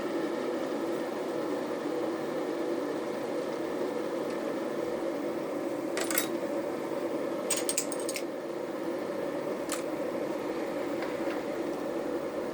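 3 kW Tesco electric kettle heating water with a steady rushing hiss. A few sharp clicks cut through it about halfway through, in a quick cluster shortly after, and once more later on.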